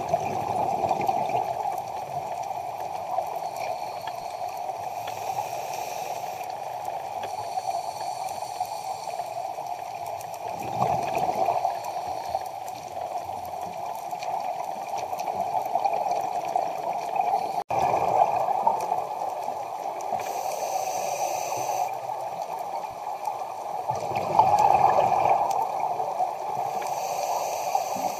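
Underwater sound of a scuba diver breathing through a regulator: swells of exhaled bubbles gurgling about every six to seven seconds, with hissing between them, over a steady underwater noise.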